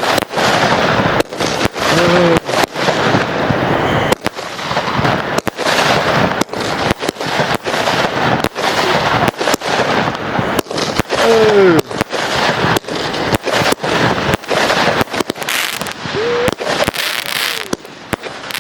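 Fireworks going off in a rapid barrage: a dense string of bangs, several a second, with crackling between them, easing off slightly near the end.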